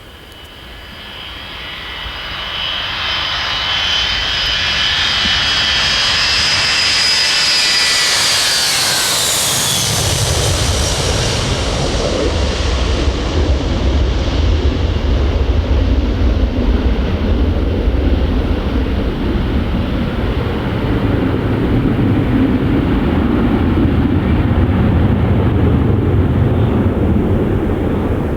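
Boeing 707-358C's four Pratt & Whitney JT3D-3B turbofans at takeoff power as the jet runs past. A high whine grows louder over the first few seconds and drops in pitch as it passes, about nine seconds in. A deep low rumble from the engines' exhaust follows and holds steady.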